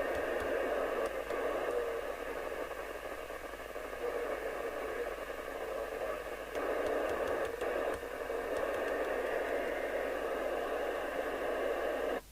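Radiomobile CB202 UK FM CB radio's loudspeaker giving a steady off-air hiss, the sound of the receiver on an aerial with the squelch open and no strong station, the noise stepping up a little about six and a half seconds in.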